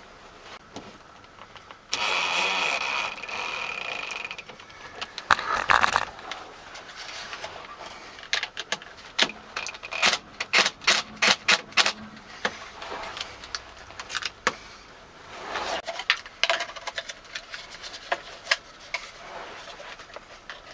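Small hardware being handled while a doorbell backing plate is screwed back on with spacer washers: a steady whirring run of about two seconds near the start, then a quick series of sharp clicks around the middle, with scattered light knocks.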